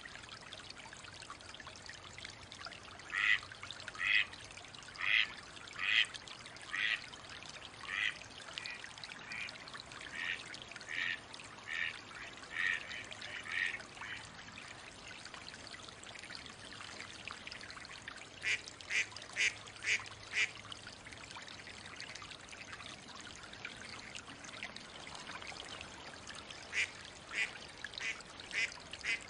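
Mallard quacking in three bouts of evenly spaced quacks. The first is a run of about a dozen that starts loud and fades, then comes a quicker run of five, and more quacks near the end.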